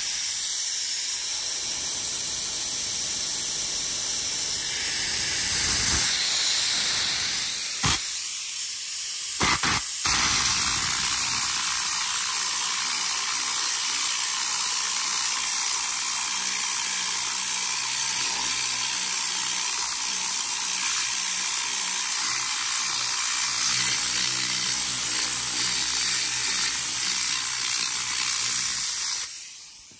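Compressed-air Tornador cleaning gun blasting air and cleaning solution: a steady, loud hiss that briefly breaks off twice around eight to ten seconds in and cuts off near the end.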